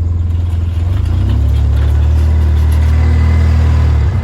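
Car engine running with a loud, steady low rumble that swells about a second in and drops off near the end.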